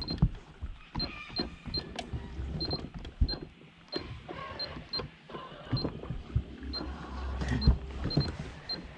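A small boat's electric trolling motor running, with knocks and clicks of rope and gear being handled on the boat. Short high beeps sound at uneven intervals throughout.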